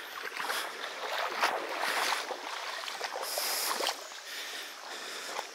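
Footsteps in soaked trail runners splashing through the shallow edge of a creek ford and crunching onto gravel, about two steps a second.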